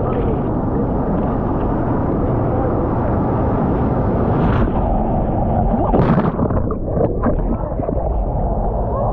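Whitewater rushing and splashing around a surfboard, with water washing over a camera mounted on the board's nose. A louder splash comes about six seconds in.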